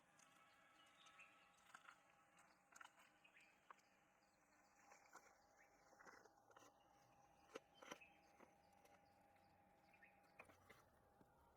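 Near silence: faint background ambience with a steady faint tone and a few scattered soft clicks.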